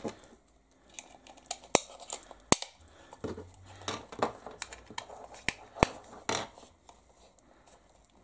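Hands handling a plastic speed-controller mount and its wires: rustling and scraping, with a few sharp plastic clicks and knocks as the base is fitted back on.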